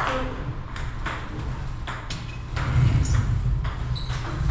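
Table tennis rally during forehand drive practice: a regular run of sharp ball clicks as the plastic ball strikes paddles and table in turn.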